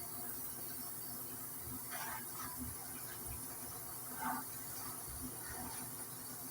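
Steady background hiss with a few faint, brief scraping noises, the loudest about four seconds in.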